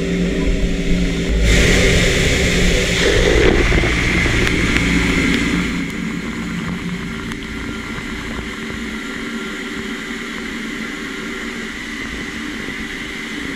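Doosan PUMA 2600SY II CNC lathe cutting 15-5 stainless steel under flood coolant: a loud, steady hiss of coolant spray and cutting from under two seconds in until about six seconds. It then drops to a quieter, steady machine hum with faint steady tones.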